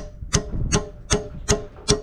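Hammer striking a steel retaining pin in a steady rhythm, about two and a half blows a second, each blow ringing briefly with a metallic tone: the pin is being driven in to hold a Yanmar-style excavator bucket tooth on its adapter.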